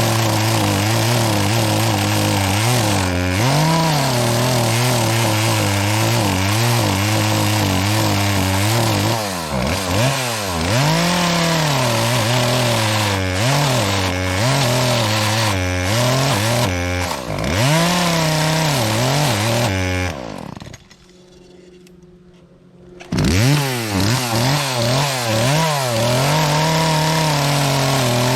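Chainsaw cutting into a tree trunk, its engine pitch repeatedly dropping under load and climbing back as the throttle is worked; the chain is dull and cuts poorly. The sound breaks off for about three seconds near the end, then the saw runs on.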